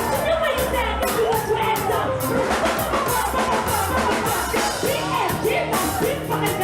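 Music with a steady beat and bass under a singing voice that glides up and down in pitch.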